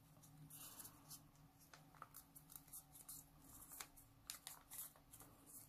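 Faint crackling and small clicks of a strip of colour paper being folded and creased by fingers, over a faint steady low hum.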